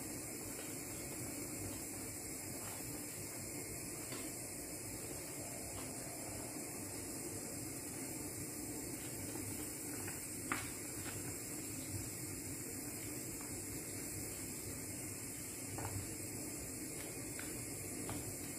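Steady low hiss and hum, with a few light clicks and knocks of a wooden spoon against a frying pan as the food is stirred; the sharpest knock comes about ten and a half seconds in.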